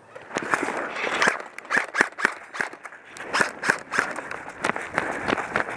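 Quick footsteps across grass: an irregular run of scuffs and sharp taps.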